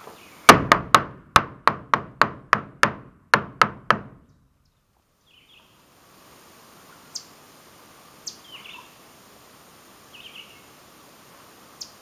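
About a dozen sharp knocks on wood, roughly three a second, with a short break partway through. After a silent stretch come a few faint clicks and several short bird calls.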